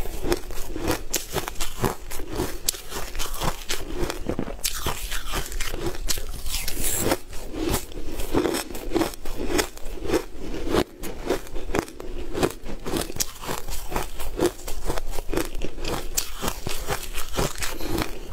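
Close-miked chewing of crumbly frozen food: dense, crisp crunching with a steady chewing rhythm throughout.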